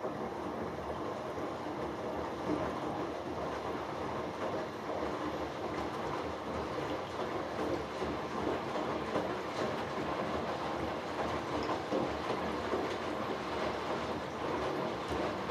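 Hoover Dynamic Next DXA610IW3 washing machine's drum turning during the final rinse, with clothes and water sloshing and a rumbling clatter. It is one tumble of about fifteen seconds that starts and stops abruptly.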